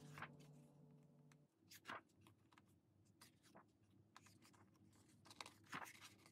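Faint rustles and soft flicks of a paper photo book's pages being turned by hand, a few scattered clicks, with the last held note of background music dying away about a second and a half in.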